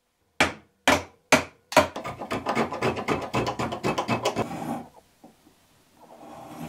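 Metal spokeshave shaving the rounded end of a hardwood board. A few separate strokes come about half a second apart, then a quick run of short scraping strokes stops about five seconds in.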